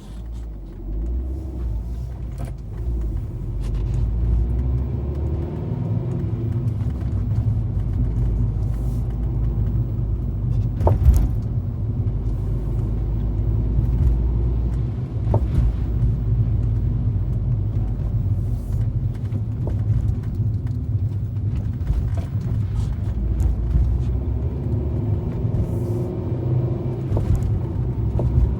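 2013 Fiat 500 driving over a rough road: steady low road and engine rumble with sharp clicks from under the car every few seconds as it goes over bumps, the loudest about eleven seconds in. The cause of the clicking is unknown.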